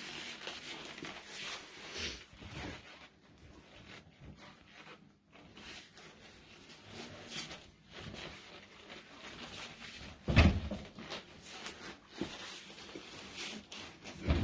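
Handling noises of a sofa bed being worked on: rustling and scraping, with one loud, deep thump about ten seconds in.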